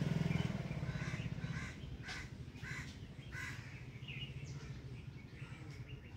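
A bird calling in short, noisy calls, about six of them over the first few seconds. Under the first calls, the low rumble of a passing vehicle engine fades away.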